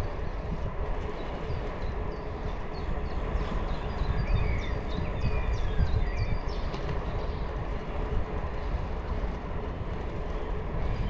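Steady low rumble of a bicycle ride, wind and rolling noise on the microphone. A scatter of short high chirps comes through from about two and a half to seven seconds in.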